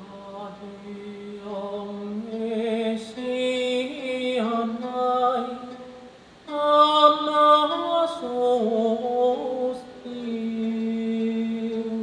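A solo voice singing a slow song in Taiwanese, with long held notes that bend in pitch. There is a short break about six seconds in, after which the singing comes back louder.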